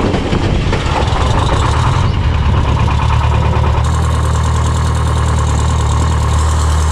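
Engine of an old farm tractor running steadily as it is driven along, with a strong low engine note throughout.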